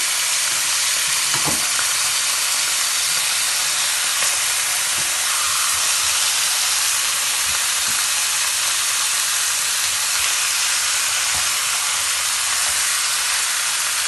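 Pork chops frying in oil in a pan: a steady sizzle, with a few faint taps.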